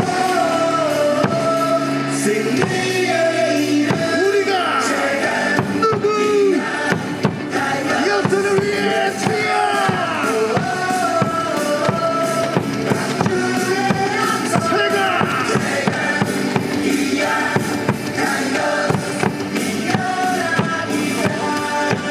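A cheer song with singing and a steady drum beat, played loud over a baseball stadium's sound system.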